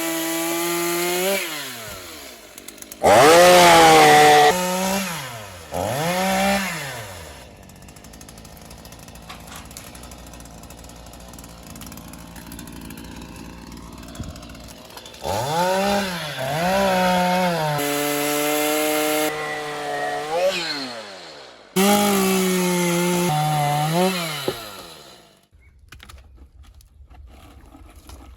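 Stihl MS 212 two-stroke chainsaw revving up in repeated bursts, its pitch rising and sagging, with a quieter idling stretch in the middle; the engine cuts out about 25 seconds in.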